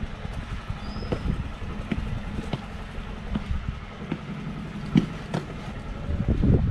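Footsteps on stone steps and dirt, a scatter of irregular sharp scuffs and taps, the sharpest about five seconds in, over a steady low rumble of city traffic.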